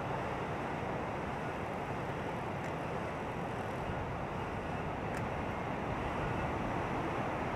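Steady rushing outdoor ambience with no distinct events, apart from a couple of faint clicks.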